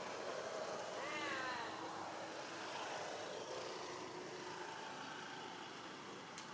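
A baby macaque calling: a short run of rising-and-falling cries about a second in, over a steady background hiss.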